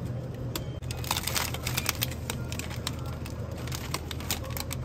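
Plastic frozen-food packaging crinkling and clicking as it is handled, in many short, irregular crackles over a steady low hum.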